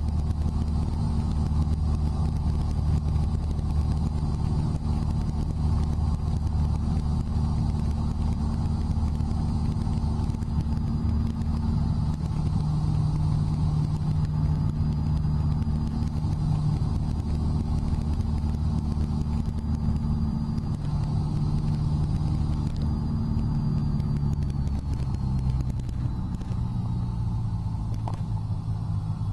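Cessna 172's piston engine and propeller running steadily in cruise, a loud, even drone heard from inside the cabin. Near the end the drone drops a little in pitch, and a faint high whine slides down with it.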